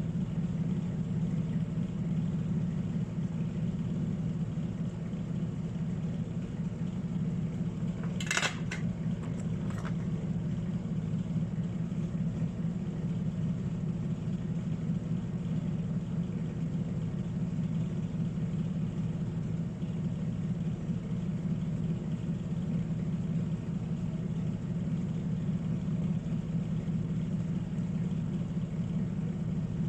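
A steady low machine hum, with a brief clatter about eight seconds in and a smaller one about two seconds later.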